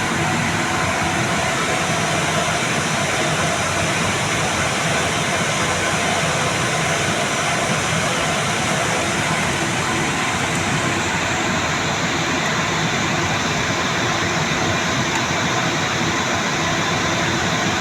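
Steady, loud rushing noise with faint steady hum tones in it, unchanging throughout.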